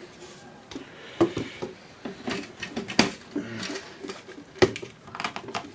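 Irregular metal clinks and knocks as avionics modules are handled and lifted out of their metal rack, with the sharpest knocks about three seconds in and again a second and a half later.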